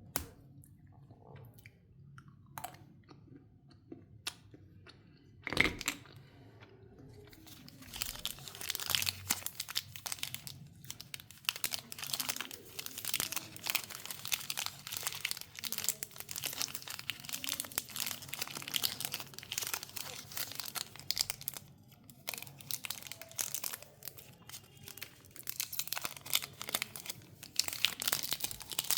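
Chocolate wrapper being crinkled and torn open. A few sharp clicks and one loud knock in the first six seconds, then dense crinkling and tearing from about seven seconds in, with a brief lull around twenty-two seconds.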